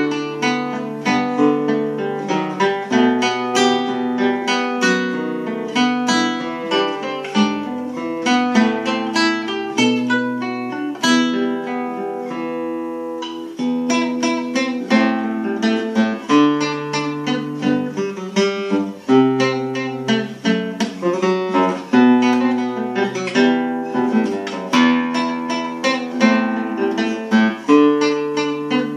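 Solo acoustic guitar played unamplified: a plucked melody over bass notes. One chord is left ringing about twelve seconds in before the playing picks up again.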